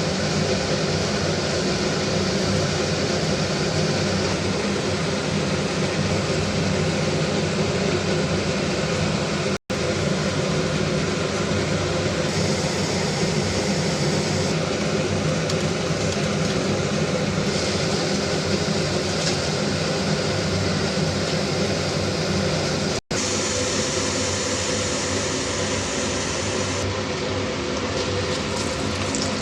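Steady whooshing noise with a low hum, like a fan or motor running, broken twice by a brief gap.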